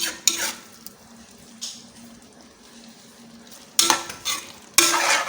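Spoon stirring and scraping in a pot of egusi soup: a few short scrapes with a faint metallic ring, quiet in the middle, with longer scrapes about four seconds in and near the end.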